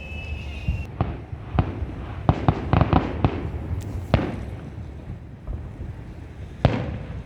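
Fireworks display: a high whistle that cuts off about a second in, then a rapid flurry of sharp bangs from aerial shells bursting, with one more bang near the end.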